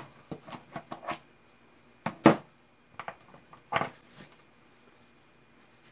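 Metal hand tools (locking pliers and needle-nose pliers) clink and knock on a tabletop cutting mat as a gloved hand picks them up and puts them down. There is a quick string of knocks in the first second, the loudest knock a little after two seconds, and two more at about three and four seconds.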